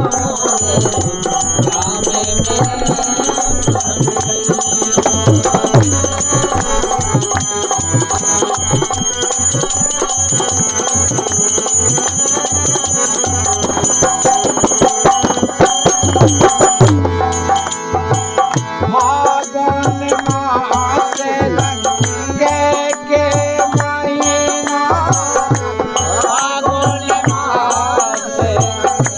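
Indian folk ensemble playing: dholak drum strokes in a steady rhythm, harmonium chords and small hand cymbals jingling continuously.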